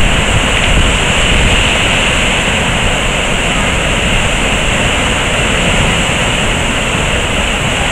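A river in fierce flood rushing through the arches of a bridge and churning into a standing wave: a loud, steady, unbroken rush of water.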